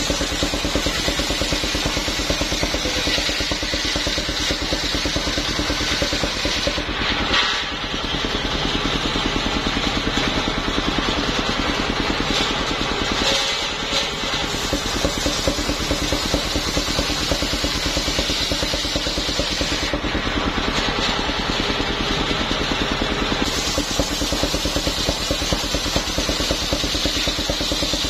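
Engine of a homemade mobile circular sawmill running steadily, driving its large circular saw blade.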